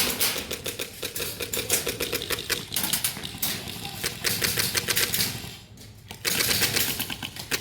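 Airsoft guns firing in rapid, clattering bursts, with a lull of about a second before the firing picks up again near the end.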